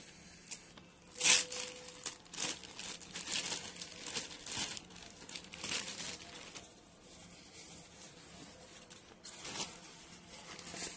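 Clear plastic polybag crinkling and crackling in irregular bursts as it is torn open and a folded bike cover is pulled out, with a sharp loud tear about a second in.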